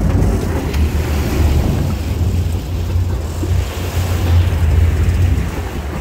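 Sportfishing boat's engines running with a steady low rumble, water churning and splashing at the stern, and wind buffeting the microphone.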